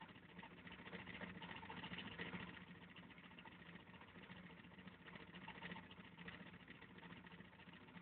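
Small coil-switched magnet motor running faintly and steadily: a low hum with fine, rapid ticking.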